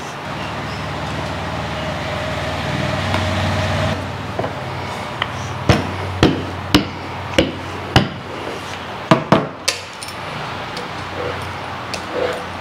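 A wooden rolling pin knocking sharply on a table as roti dough is rolled out, about nine knocks roughly half a second apart. A steady low hum runs for the first few seconds before the knocks begin.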